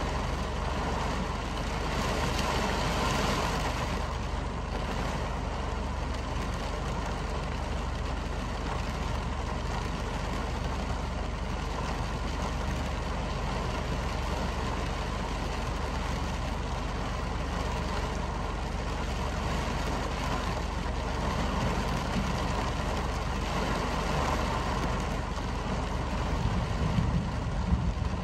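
Heavy rain falling as a steady hiss, with a constant low rumble underneath. The rumble grows heavier near the end.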